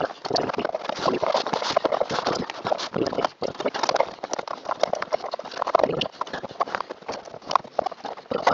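Rapid, irregular knocking and clattering of hard plastic and metal parts as a car's heater blower motor is worked back up into its housing under the dashboard.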